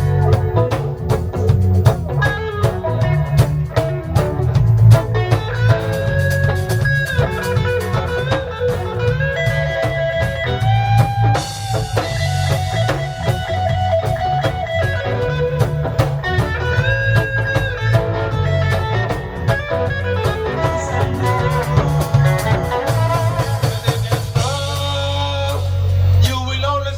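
Live reggae band playing an instrumental passage: a guitar carries the melody with bending notes over a steady bass line and drum kit.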